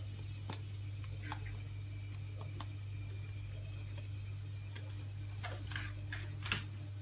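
Cumin seeds sizzling faintly in hot ghee and oil in a steel pressure cooker, under a steady low hum, with scattered light crackles and a few sharper clicks near the end.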